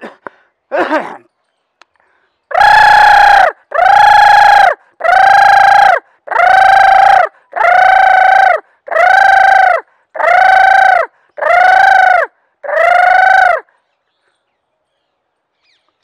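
A man mimicking the calls of a pair of sarus cranes in flight with his voice: ten loud, evenly spaced calls of about a second each, each one a high, steady note that bends slightly at its ends.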